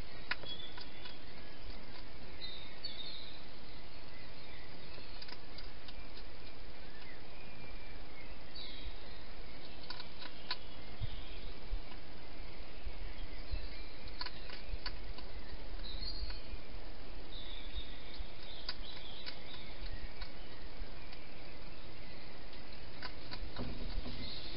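Steady hiss, with sparse small clicks and crunches from a hedgehog eating at a bowl inside a plastic feeding box. Faint high chirps come and go behind it.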